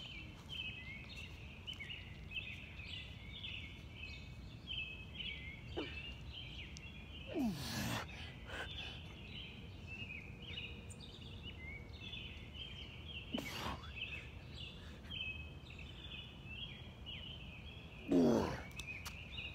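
A steady chorus of night insects chirping in a high, pulsing band, with several short falling-pitched grunts or exhalations from a man doing push-ups, the loudest about 7 seconds in and near the end.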